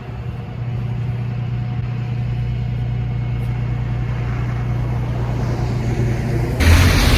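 Steady low drone of a running motor vehicle. A little over six seconds in, a much louder rushing noise cuts in suddenly.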